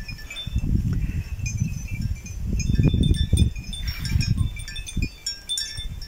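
Wind buffeting the microphone in uneven low gusts, strongest about halfway through, over a light, scattered tinkling of small bells.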